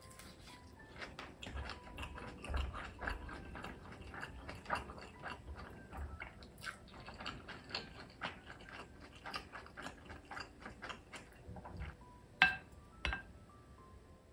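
Close, irregular crackling and clicking, then two sharp knocks about half a second apart near the end as a wooden spoon is laid across a glass bowl.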